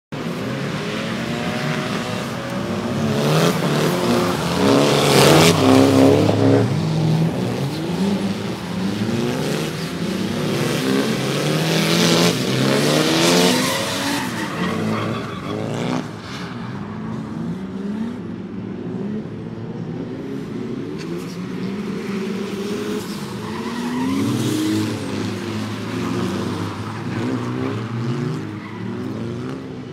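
Drift cars sliding in tandem on a wet track, their engines revving up and down with tyre noise as they slide. The loudest passes come about four to six seconds in and again around twelve to fourteen seconds in.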